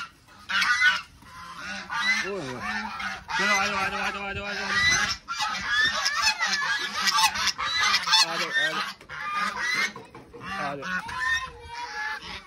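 A flock of geese honking over one another in quick succession, with ducks and chickens among them.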